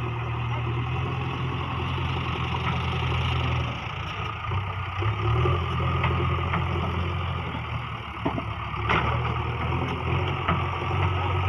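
Heavy diesel engine running steadily at a low pitch. It eases off about four seconds in and picks up again a second or so later. A couple of sharp knocks come near the end.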